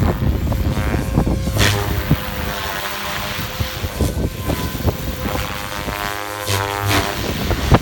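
Goblin 700 Havok electric RC helicopter in flight: the rotor and motor whine steadily, shifting in pitch a couple of times as it manoeuvres.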